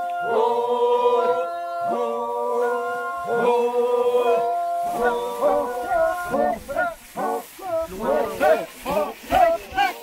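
A group of men singing a threshing work chant in harmony. For the first half they hold long chords that shift together, then they break into short rhythmic chanted calls about two a second while treading out the rice.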